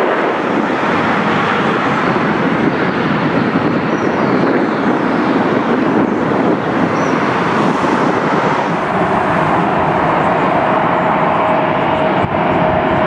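Jet airliner engines running with a loud, steady rush. A steady whine joins about nine seconds in.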